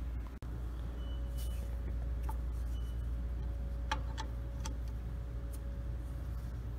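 Steady low machine-shop hum, with a few scattered light metallic clicks as a hex key is worked in the socket-head cap screws of a lathe taper attachment to loosen them.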